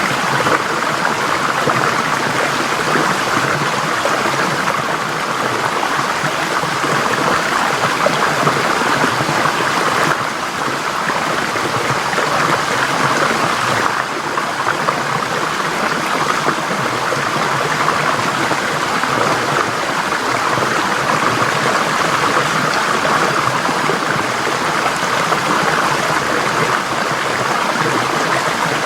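Forest stream flowing over rocks: a steady, continuous rush of running water with some trickling.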